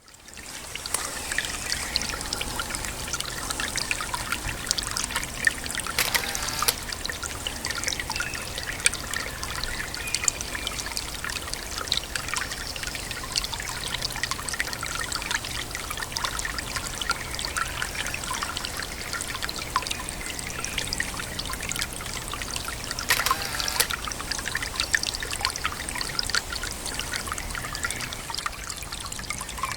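Small brook trickling and splashing steadily, with many little irregular plinks, and two short louder swells about six seconds in and near twenty-three seconds.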